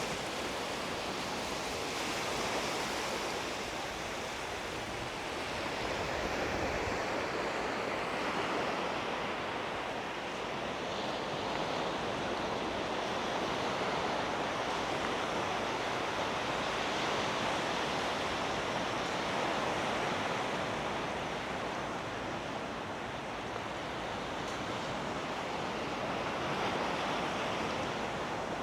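Sea waves washing onto the shore: a steady surf hiss that swells and eases gently every few seconds.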